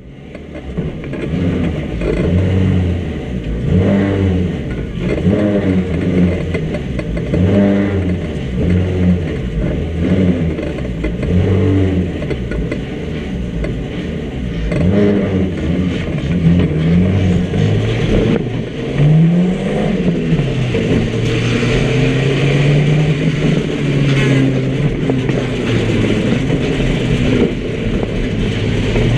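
Small micro banger car's engine heard from inside its stripped-out cabin, revving up and falling back again and again as it is driven hard, then holding a steadier higher note from about twenty seconds in.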